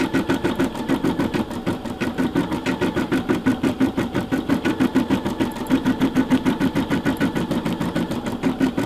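Brother SE600 embroidery machine stitching out a design, its needle running in a fast, even rhythm of many stitches a second.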